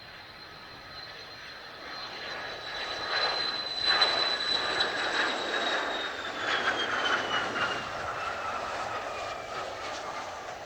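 Mitsubishi F-2 fighter's F110 turbofan going past: a high whine over the jet roar grows to its loudest partway through, then drops steadily in pitch as the aircraft moves away.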